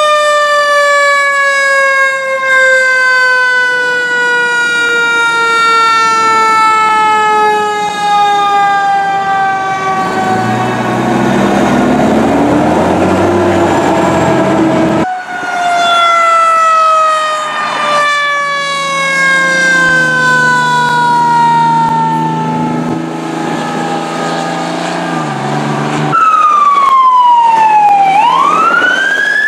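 Fire truck mechanical siren winding slowly down in pitch after being run up, then, after a cut, a second slow wind-down with the truck's engine running underneath. Near the end a fire rescue truck's electronic siren sweeps down and back up in a wail.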